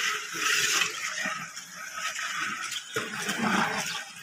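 Large metal pots of spiced pulao broth boiling over a wood fire, a steady bubbling hiss.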